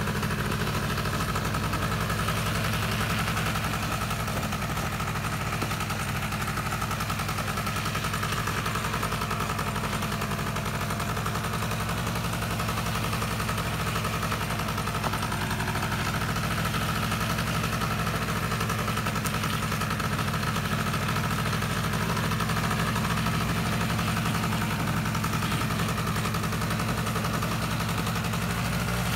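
Polaris ATV engine running at a steady, even pitch while towing two logs on a line through snow.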